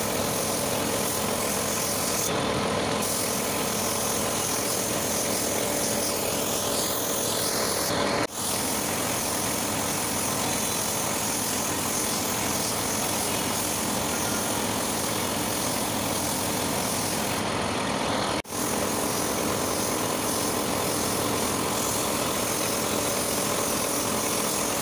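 Compressed-air spray gun hissing steadily as it sprays glaze finish onto a wooden panel, with a steady mechanical drone underneath. The sound drops out for a split second twice, about a third and about three quarters of the way through.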